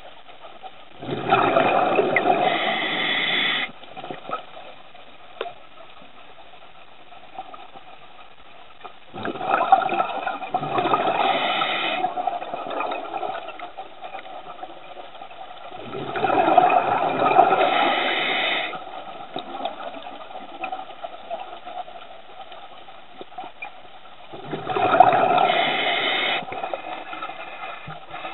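Open-circuit scuba regulator underwater: four bursts of exhaled bubbles, each lasting two to three seconds and coming about every seven to eight seconds with the diver's breathing.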